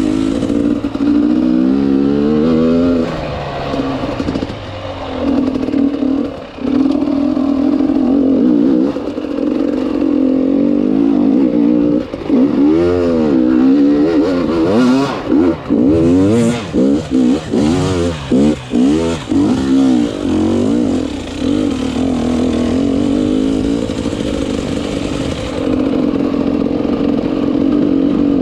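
Enduro motorcycle engine running under load. Between about 12 and 20 seconds in, it is revved up and down many times in quick succession, with short drops as the throttle is shut.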